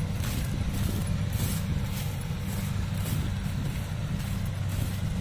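Kubota DC-70 rice combine harvester running steadily as it cuts and threshes rice, a constant low engine drone.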